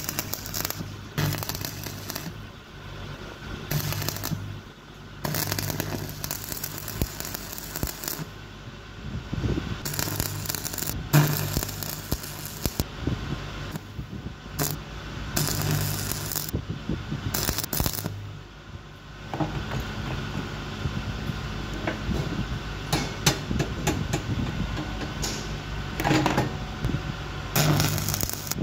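Stick (shielded metal arc) welding on steel grating bars: the arc crackles and sizzles in short runs of a second or two, starting and stopping repeatedly as each joint is welded. A steady low hum runs underneath.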